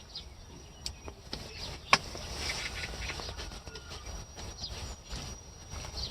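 Quiet outdoor ambience with faint bird calls and one sharp click about two seconds in.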